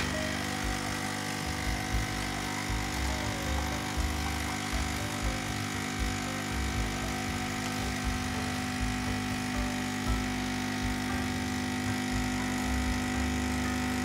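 De'Longhi Scultura ECZ351BK espresso machine's vibration pump running steadily, a constant buzzing hum as it pushes water through the coffee grounds while a shot pours.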